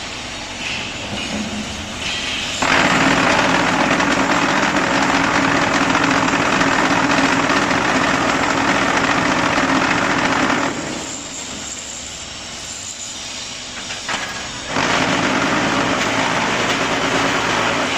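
Concrete block-making machine running: a loud, steady, mechanical hum comes on about three seconds in and drops away after about eight seconds. It comes on again for about three seconds near the end, in the on-off cycle of the machine's compaction.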